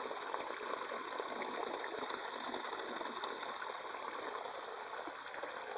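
Small forest creek running steadily, its water swollen after rain.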